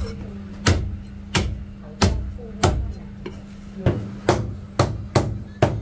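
Cleaver chopping braised goose on a cutting board: about nine sharp chops, roughly one to two a second, coming quicker toward the end, over a steady low hum.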